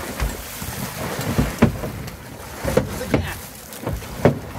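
A large Pacific halibut thrashing at the surface against a boat's hull, throwing up water in several irregular splashes and slaps, with wind on the microphone.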